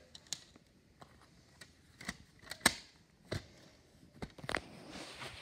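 Handling noise from the camera being moved about: irregular clicks and knocks, the loudest a little under three seconds in, with a soft rustle of fabric near the end.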